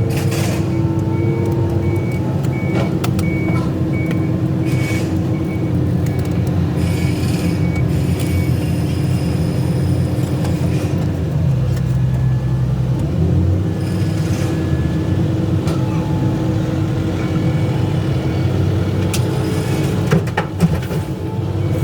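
Excavator's diesel engine running steadily at work, its note dropping and changing for a couple of seconds about halfway through, with scattered knocks and clanks, a cluster of them near the end. A high beeping alarm repeats through the first third and again in the last few seconds.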